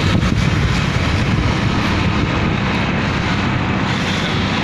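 Steady wind rush on the microphone, with the road and engine noise of a motorcycle being ridden at speed.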